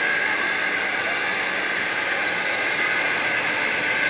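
Steady industrial machinery noise: a continuous mechanical hum with a high whine held at a constant level.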